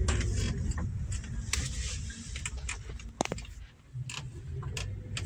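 Car cabin noise while driving slowly over a rough, patched road: a low rumble with scattered clicks and rattles.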